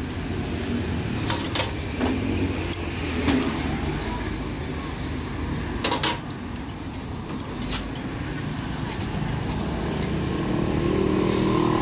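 Steady street traffic rumble, with a motor vehicle engine growing louder near the end. Several sharp, short clinks of tableware, a metal spoon against ceramic bowls, come through over it.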